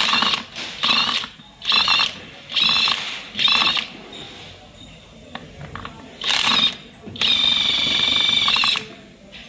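Cordless power wrench spinning a socket on the headset nut of a Kugoo S1 electric scooter's steering stem, loosening it. It runs in short whirring bursts: five quick bursts, a pause, then one short burst and a longer one of about a second and a half near the end.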